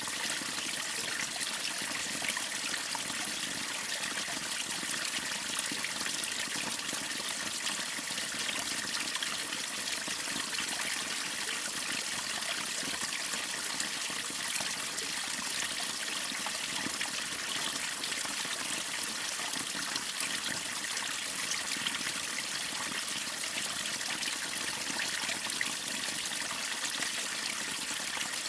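Waterfall and river water splashing and rushing in a steady, even stream, with fine trickling and splashing detail.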